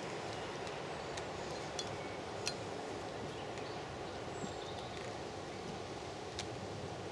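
A few short sharp clicks and knocks as split wooden kindling is stacked onto logs in a metal fire bowl, over a steady background hiss.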